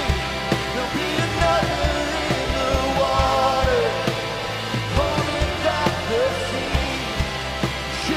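A church worship band playing a rock-style praise song with a steady drum beat, and voices singing the melody.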